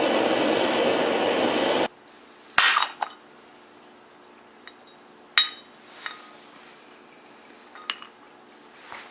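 A loud steady rushing noise that cuts off suddenly about two seconds in, followed by a handful of sharp, scattered metallic clinks and taps.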